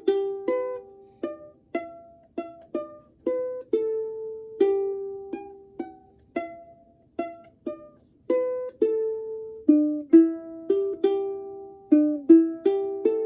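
3D-printed soprano ukulele being picked: a melody of single plucked notes, each starting sharply and ringing away, now and then two strings sounding together.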